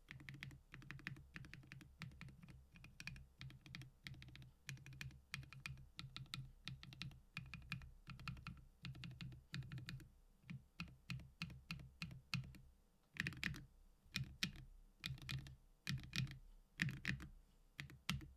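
Mechanical macropad keys with Gateron Lunar Probe switches and KAT Milkshake keycaps being pressed, each keystroke a short clack. The presses come in quick runs at first. About thirteen seconds in they slow to single, louder strokes spaced well apart.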